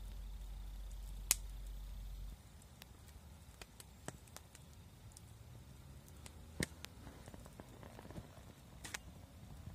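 Wood campfire crackling, with sharp pops every second or so, the loudest about a second in. A low rumble runs under it for the first two seconds, then drops away.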